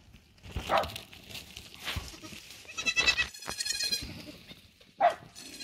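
Miniature goats bleating: a few short bleats, with a higher, longer one about three seconds in.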